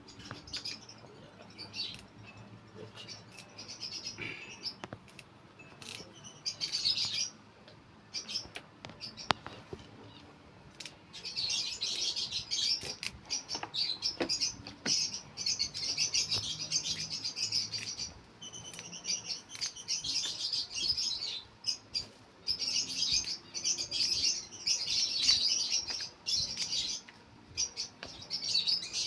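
A flock of African lovebirds chirping in rapid, overlapping high calls. The chirping is patchy at first and becomes dense and loud from about eleven seconds in, with a few faint clicks.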